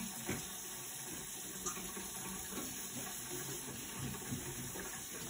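Steady hissing background noise with a faint click early on and another at about a second and a half.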